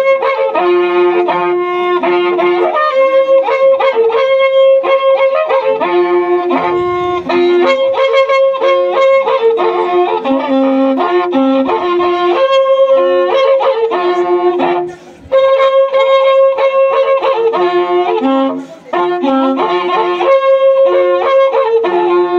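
Two waqrapukus, Andean bull-horn trumpets, blown together in a melody of held, buzzy notes, breaking off briefly twice for breath.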